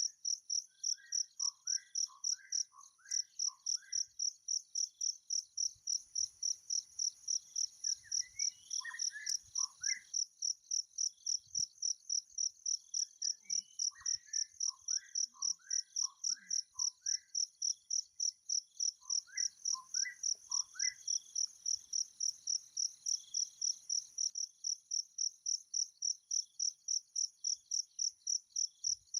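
An insect, cricket-like, calling steadily in a high, evenly pulsed chirp of about three or four pulses a second. A bird sings four short phrases of quickly repeated alternating notes over it, about a second in, around nine seconds in, at fourteen to seventeen seconds and near twenty seconds.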